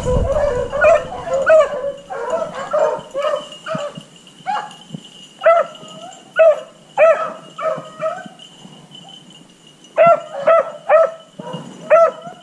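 A pack of beagles baying in short, repeated barks, several dogs overlapping at first. The barking pauses for about two seconds past the middle, then starts again: the hounds running a cottontail rabbit's trail.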